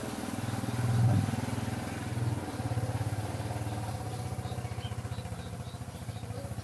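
An engine running steadily as a low, evenly pulsing hum, swelling briefly about a second in.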